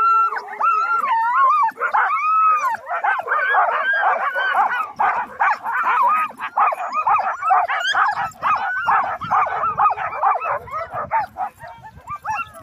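A chorus of Alaskan husky sled dogs barking, yipping and howling all at once, many overlapping high calls without a break, from a harnessed team held at a standstill and eager to run.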